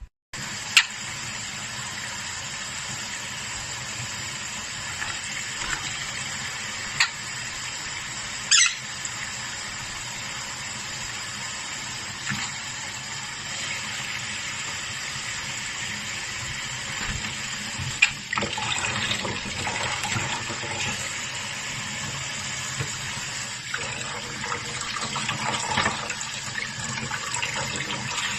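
Steady rush of running water, like a tap or shower spray. A few short, sharp chirps or clicks, likely from a small pyrrhura conure, sound a handful of times over it.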